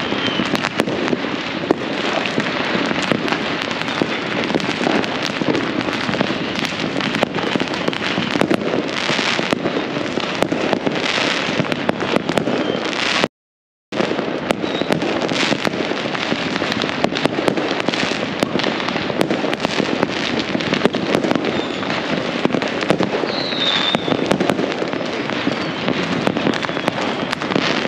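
Dense, continuous crackling and popping of many fireworks and firecrackers going off at once all around, with no single blast standing out. The sound cuts out completely for under a second about halfway through.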